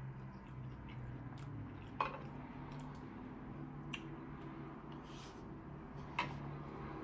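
Close-up eating sounds of chewing, with three sharp clicks of a spoon against a plate, about two seconds apart, over a low steady hum.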